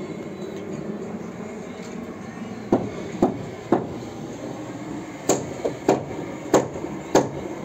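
Hammer driving nails into timber roof rafters: sharp strikes, three about half a second apart, then a faster run of about five more near the end.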